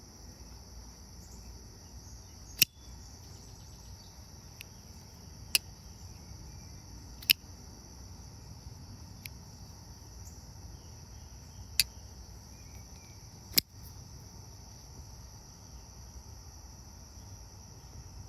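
Folding knife blade being flicked open and snapped shut, giving sharp single clicks every two to four seconds, about five loud ones and a couple of fainter ones, over a steady high-pitched insect chirring.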